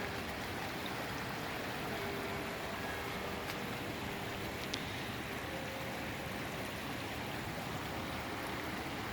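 Steady rush of the river Alb's flowing water.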